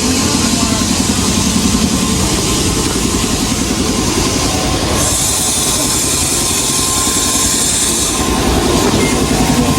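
Farm machinery running steadily: a low engine-like rumble with an even pulse, and a hiss joining for about three seconds in the middle.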